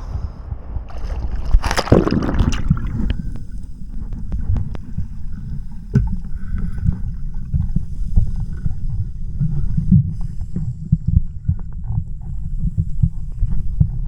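Strong wind buffeting the microphone in a low, gusty rumble over a stormy sea, with a loud rush, like a wave breaking, about two seconds in.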